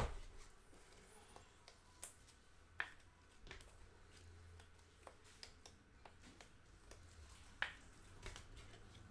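Quiet handling of trading cards on a table: a few faint scattered clicks and taps, the sharpest about two, three and seven and a half seconds in, over a low steady hum.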